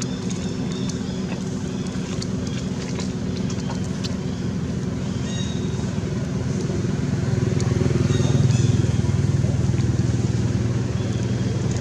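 Steady low engine drone, swelling louder about two-thirds of the way through, then easing off.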